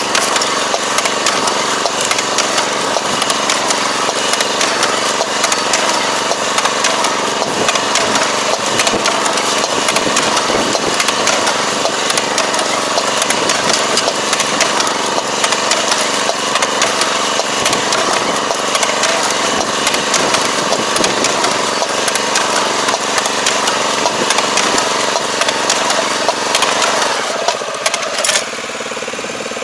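Tobacco transplanter working: its cup-feed planting mechanism clatters in a dense, steady rattle over the drone of its engine. Near the end the clatter stops and the engine runs on alone, steadier and quieter.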